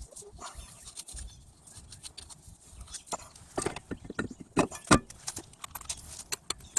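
Metal brake parts and hand tools clicking and knocking together as rear brake hardware is handled: irregular sharp clicks that come faster about halfway through, with two louder knocks near the end.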